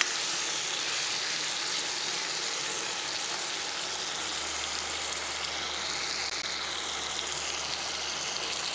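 Meat and potato pieces frying in oil in a black wok, a steady sizzle, with a spatula stirring them near the start.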